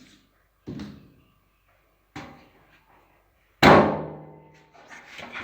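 Three knocks against the washing machine's metal parts during disassembly, the third the loudest, with a metallic ring that dies away over about a second.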